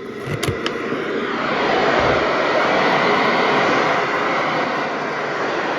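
Radio receiver static: a steady hiss that swells over the first couple of seconds and then holds.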